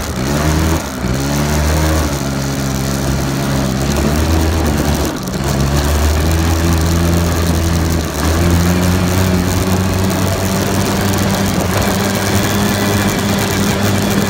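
Four-wheeler (ATV) engine running while riding, its speed rising and falling through the first half, then holding steady from a little past the middle.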